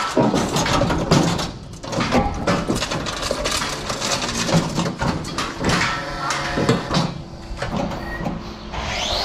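Irregular knocks and clattering, as from a cow being handled in a metal hoof-trimming chute.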